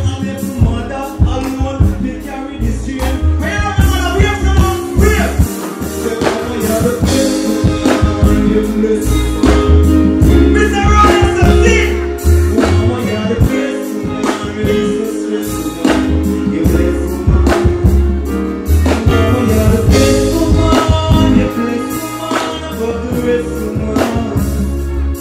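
Live concert performance: a male vocalist singing and deejaying into a microphone over loud music with heavy, pulsing bass.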